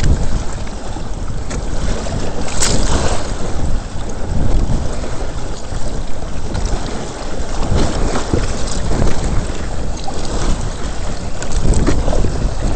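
Strong wind buffeting the microphone over water rushing and slapping against the hulls of a Hobie Adventure Island sailing trimaran kayak moving fast through chop in winds around 18 mph. A sharper splash of spray comes about two and a half seconds in.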